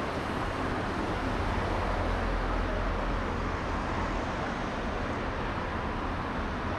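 City street traffic: cars passing on the road beside the tram stop, a steady low rumble that swells for a while about two seconds in.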